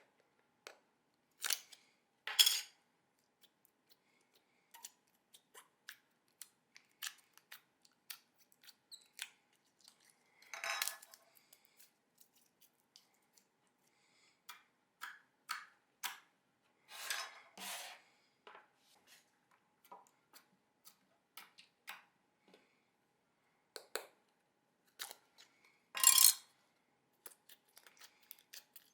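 Hands playing with slime: scattered small sticky clicks and pops, with a few louder, longer squelches as it is pressed and stretched.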